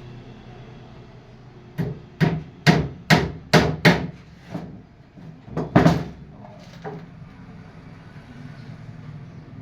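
Hammer blows on wood: about ten strikes, roughly two a second, starting about two seconds in and stopping about seven seconds in.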